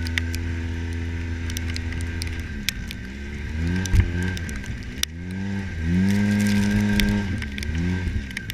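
Side-by-side UTV engine running under way, steady at first, then dropping and picking up again twice as the throttle is eased and opened. Scattered sharp clicks and rattles sound throughout, with a louder thump about four seconds in.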